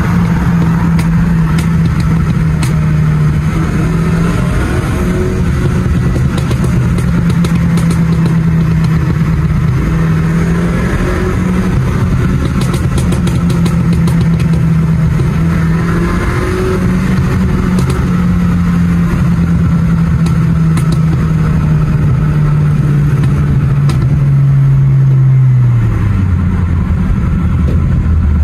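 BMW car's engine and exhaust heard from inside the cabin while driving, a steady drone over road noise that holds its pitch with small shifts. It swells slightly and then falls in pitch near the end as the car slows.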